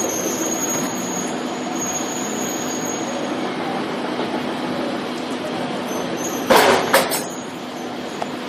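Cellulose cooling-pad production machine running steadily, with two short loud bursts about six and a half and seven seconds in.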